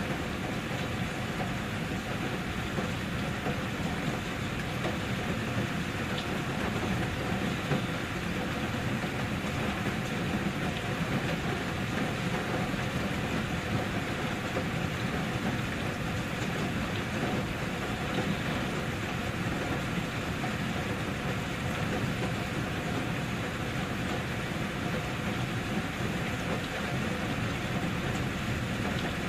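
Steady rain falling: an even, unbroken hiss with a low rumble underneath.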